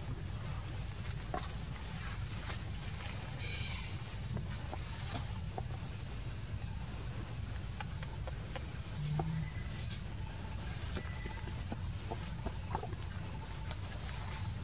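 Steady, high-pitched drone of forest insects over a low, even rumble, with a few faint scattered clicks.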